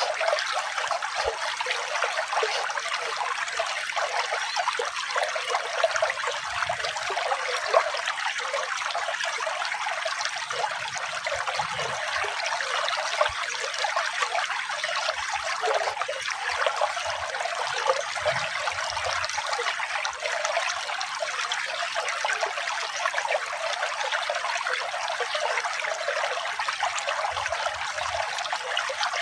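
Running water trickling steadily, a continuous light splashing sound with no deep rumble.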